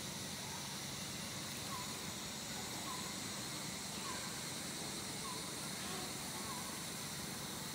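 Outdoor natural ambience: a steady hiss with a faint short call near the middle of the range, repeated about once a second.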